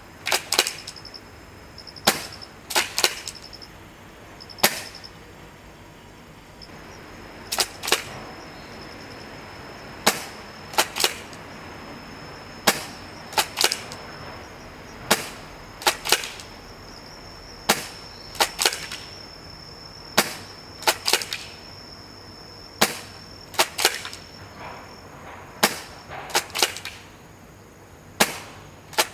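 Tokyo Marui M3 Shorty spring airsoft pump shotgun being fired over and over: a sharp snap of each shot, then the quick double clack of the pump being racked back and forward, the cycle repeating about every two and a half seconds.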